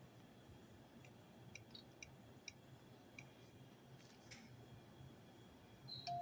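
Near silence with a faint low hum, a handful of faint scattered clicks and a brief soft rustle about four seconds in.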